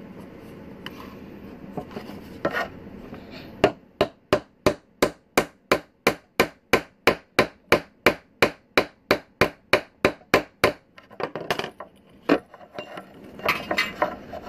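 Rawhide mallet tapping a steel snap setter tool in a fast, even run of about four blows a second for some seven seconds, flaring the post of a button-stud snap against its anvil. One harder single blow follows a little later.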